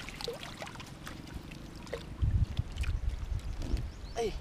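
Shallow paddy water sloshing and splashing as hands gather a fishing net and pull tilapia from it, with heavier, uneven low rumbling from about two seconds in.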